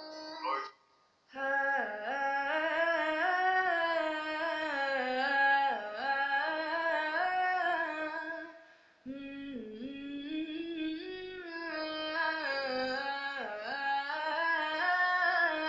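A woman singing solo and unaccompanied, in long held notes with ornamented dips in pitch. She breaks off twice for breath, about a second in and about nine seconds in.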